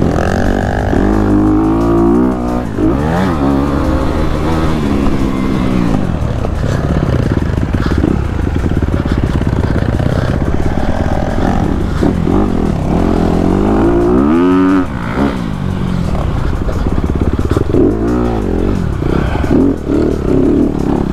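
Honda CRF250RX's four-stroke single-cylinder engine revving up and falling off again and again as the bike accelerates, shifts and slows through the bumps and corners.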